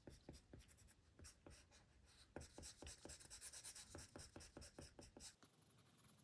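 Faint taps and strokes of an Apple Pencil on an iPad's glass screen while drawing, with a quick run of taps in the middle that stops near the end.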